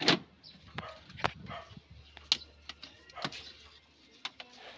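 Irregular sharp clicks and knocks of plastic casing parts and a screwdriver being handled while the cover of an electric air cooler is taken off, about half a dozen in all, the loudest right at the start.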